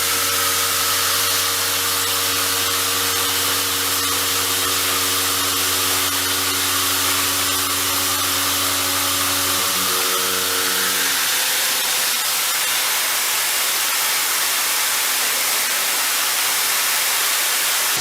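CNC milling machine making a heavy milling cut: a loud, steady hiss of cutting and coolant noise over a low machine hum, and the hum stops about two-thirds of the way through.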